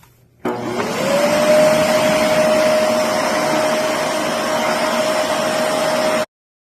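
Samsung Power Motion 2100 vacuum cleaner switching on: its motor spins up, its whine rising over about a second, then runs steadily with a loud rushing of air and stops abruptly near the end.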